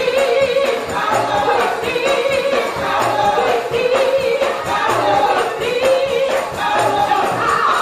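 Gospel choir singing with musical accompaniment and a steady beat.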